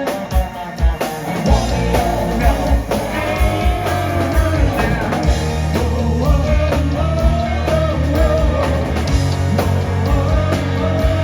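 Live rock band playing a song: drums keeping a steady beat under bass and electric guitar, with a sung or lead melody line over the top.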